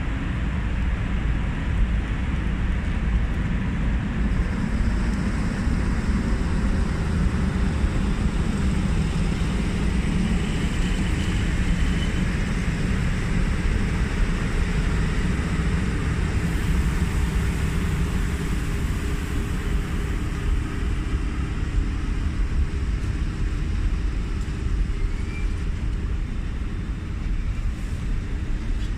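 ET22 electric freight locomotive hauling a train of open coal wagons past at low speed: a steady low rumble of the locomotive and of wagon wheels rolling on the rails.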